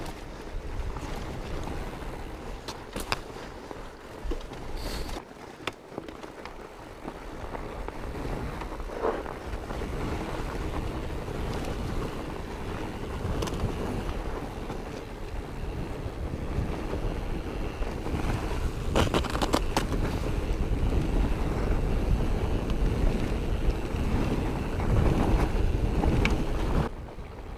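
Fat bike riding down a trail: steady wind rushing over the action-camera microphone, with the tyres rolling and a few sharp knocks and rattles from the bike. It grows louder in the second half and drops suddenly near the end.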